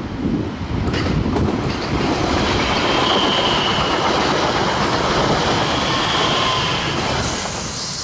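Bombardier Aventra class 701 electric multiple unit passing close at speed: a loud rush of wheel and rail noise that builds about a second in and eases near the end, with a faint high whine on top.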